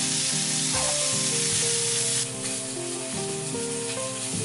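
Zander fillets frying in clarified butter in a pan, a steady sizzle that drops away sharply about halfway through. Background music plays throughout.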